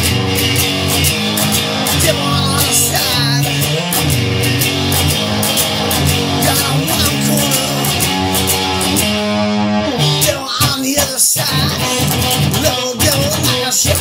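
Instrumental stretch of a rock song: guitar-led music over bass and a steady drum beat, with bending guitar notes.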